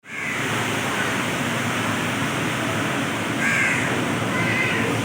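Steady rushing noise of heavy monsoon rain and water, with a few short bird calls about three and a half and four and a half seconds in.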